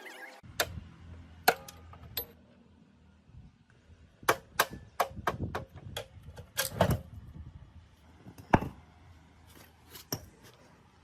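Irregular sharp metallic taps and knocks, a dozen or so, as metal parts and tools are handled and struck during workshop work on an old motorcycle.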